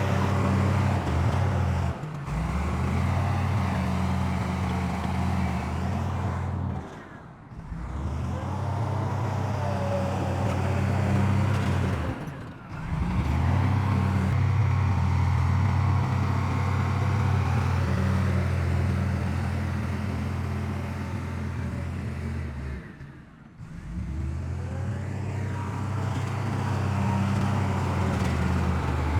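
Heavy diesel engine of earthmoving machinery running steadily under load. It drops away briefly three times and comes back.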